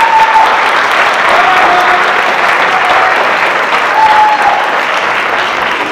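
Audience applauding, swelling in and tapering off, with a few short held notes over the clapping.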